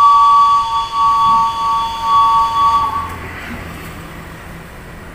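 Diesel locomotive horn sounding one long two-note blast for about three seconds, then cutting off, leaving a low background rumble.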